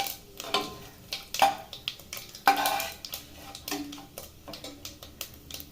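Metal ladle stirring whole spices in hot oil in a pressure cooker, scraping and clinking against the pot in irregular strokes, some with a brief metallic ring; the loudest clink comes about halfway through.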